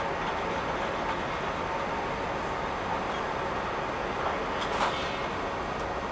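Motorized compact shelving unit rolling along its floor rails to open an aisle, a steady mechanical hum and rumble, with a short knock nearly five seconds in.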